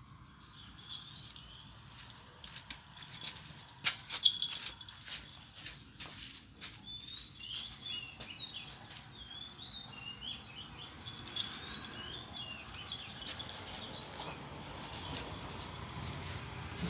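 Two cats play-fighting on a concrete floor: scuffling with sharp taps and clicks, loudest about four seconds in. A run of short, high chirps follows in the middle.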